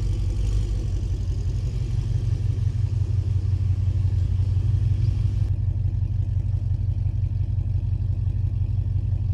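Lexus RC F's 5.0-litre V8 idling steadily on new PPE unequal-length headers, a deep, even exhaust note shortly after its first cold start on them.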